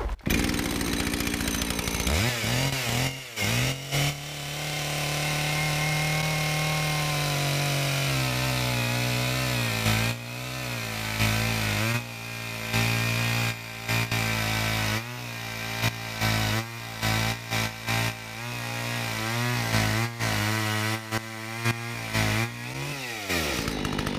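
Husqvarna 61 cc two-stroke chainsaw with 3/8-inch chain revving up and cutting through a large log at full throttle. The engine note sags and wavers as the chain bites through the wood, then falls away near the end as the cut finishes and the throttle is released.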